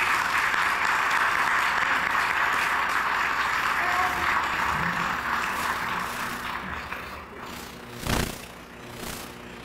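Audience applauding, loudest at first and dying away over about seven seconds. A single dull thump comes near the end.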